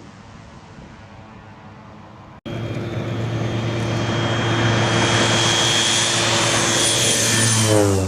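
Air Tractor AT-502 crop duster's turboprop engine. A steady engine hum, then after an abrupt cut a much louder run with a high turbine whine that grows louder. Its pitch falls sharply near the end, as when the plane passes by.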